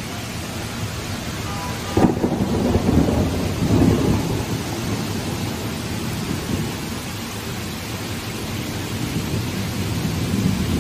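Heavy rain pouring down steadily, with a sudden clap of thunder about two seconds in that rumbles on for a couple of seconds.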